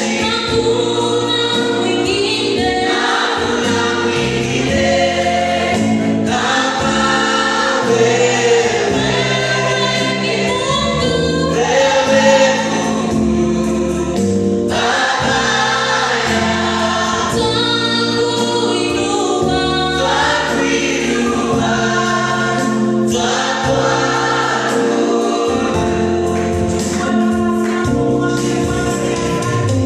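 Congregation or church choir singing a gospel praise song with instrumental backing and a steady bass line.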